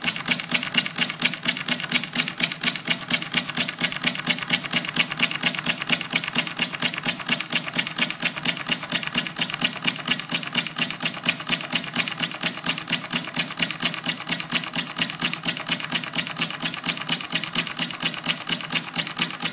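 Homemade steam engine with a copper-pipe cylinder and valve timing mechanism running at a steady, rapid rate, its valve and piston clicking sharply with every stroke in an even rhythm.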